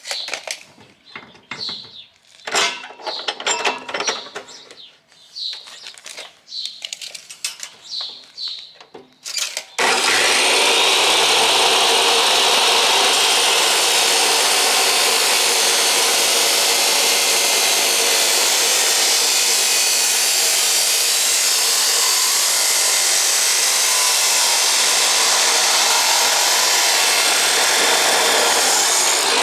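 A drop saw cutting through 3-inch exhaust pipe. It starts suddenly about ten seconds in with a loud, steady cutting sound that carries on without a break. Before it there are scattered short knocks and handling sounds as the pipe is set in place.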